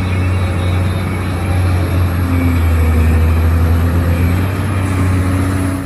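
A motor running steadily: a loud, even low hum with a hiss over it, cutting off near the end.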